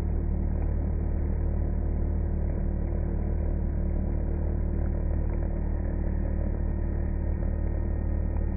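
CNC router spindle at 18,000 rpm driving a 3 mm single-flute end mill through polyethylene sheet, 5.1 mm deep at 1500 mm/min, with the cutter clogged by melted plastic. Steady, unchanging machining noise.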